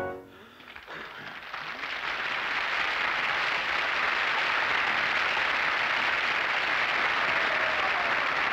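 The music's last chord fades away, then audience applause swells up over about two seconds and holds steady.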